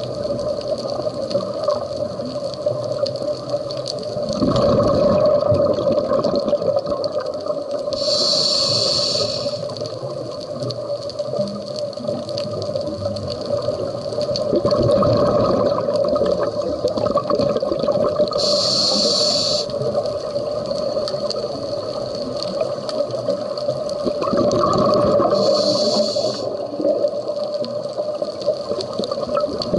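Scuba regulator breathing heard underwater: three rumbling bursts of exhaled bubbles about ten seconds apart, with short high hisses of inhalation through the regulator between them, over a steady hum.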